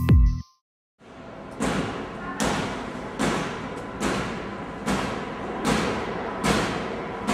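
Electronic music cutting off, then after a second of silence a regular series of thumps, about one every 0.8 s, each echoing briefly, over a steady background hum.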